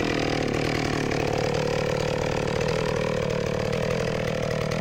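Vintage McCulloch Pro Mac 605 two-stroke chainsaw running steadily at idle after starting, its engine firing evenly with no revving.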